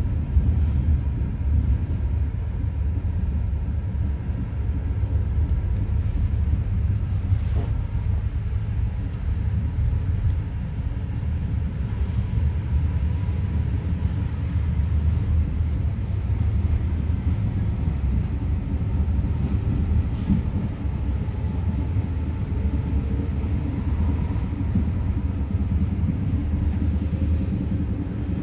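Passenger train carriage running along the line, heard from inside: a steady low rumble with a few faint clicks.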